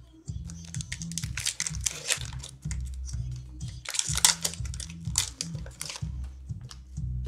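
Foil wrappers of Upper Deck hockey card packs crinkling and tearing as packs are opened and cards handled, loudest about four seconds in, over background music with a steady bass line.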